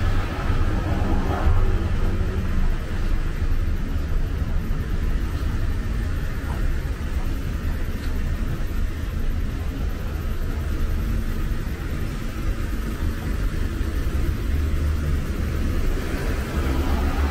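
Road traffic on a city street: a steady low rumble with the hiss of passing cars, which swells near the start and again near the end.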